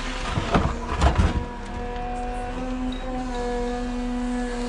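An excavator bucket dumps a load of earth and stones into a steel dump truck bed, a loud clatter between about half a second and a second and a half in. Under it runs the steady hum of the electric Cat 320 Z-Line excavator.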